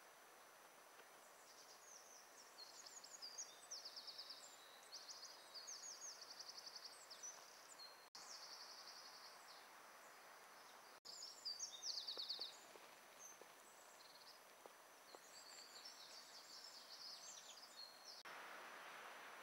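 A small songbird singing high, rapid trills and twittering phrases in several bursts over a faint steady hiss.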